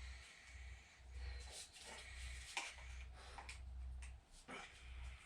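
Faint handling noises of work on an engine's timing belt cover: a few light clicks and rustles over a low hum.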